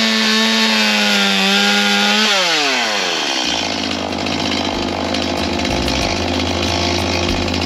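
Chainsaw held at high revs with a steady high whine. A little over two seconds in the throttle is let off and the revs fall away in a quick descending glide. Music with a stepping bass line takes over for the rest.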